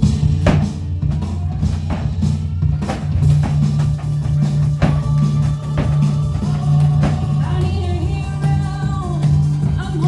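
Loud rock-style music with drum kit, bass and guitar, kicking in suddenly with heavy drum hits; a singing voice comes in about halfway through.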